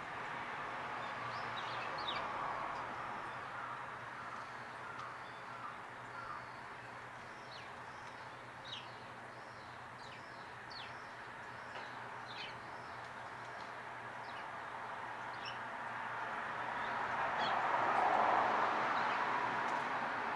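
Small garden birds chirping: many short, sharp calls, scattered and repeated, over a steady background rush that grows louder near the end.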